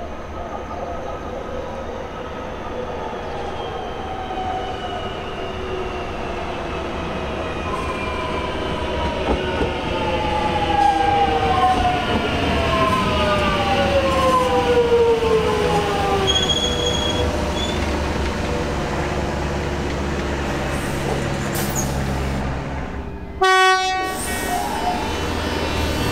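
Melbourne Metro electric suburban train slowing into a station: several falling tones from its traction motors whine down in pitch as it brakes, over a steady rumble of wheels on rail. A short high tone sounds about halfway through.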